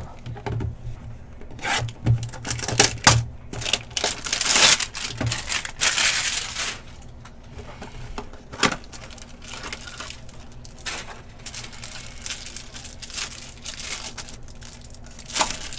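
A Panini Select trading-card hanger box being torn open by hand, with sharp clicks and a longer tearing rustle a few seconds in. After that comes lighter crinkling of the cellophane-wrapped cards.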